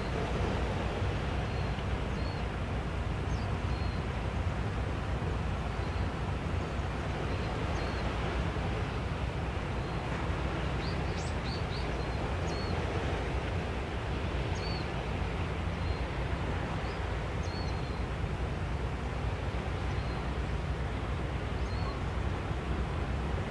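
Steady low outdoor rumble with small birds chirping here and there, a cluster of short rising chirps around the middle.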